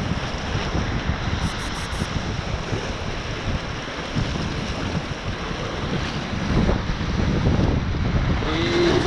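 Ocean surf washing and breaking over a rocky shoreline, with wind buffeting the microphone in gusts.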